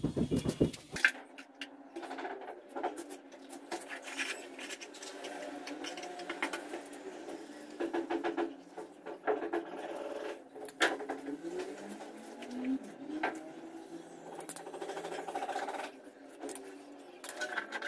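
A small metal carving tool scraping and shaving damp cement on a cast cement column, in short repeated scratchy strokes with light clicks of the blade against the cement.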